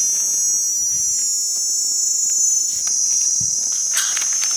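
A loud, steady, high-pitched drone from a chorus of forest insects. A few soft low knocks come through it, and brief rustling and clicking near the end.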